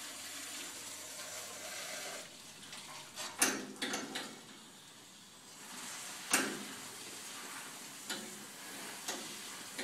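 Water jetting from a Water Saber wand into a small boiler to wash out soot and carbon, a hissing, spattering spray, broken by several sharp knocks, the loudest a few seconds in and again about halfway through.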